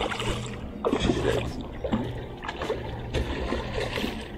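Hooked snook thrashing at the surface beside the boat, water splashing several times at irregular intervals.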